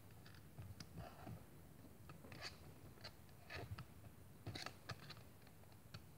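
Faint, scattered small clicks and scrapes of plastic toy swords being pushed into the slots of a Pop-up Pirate barrel toy.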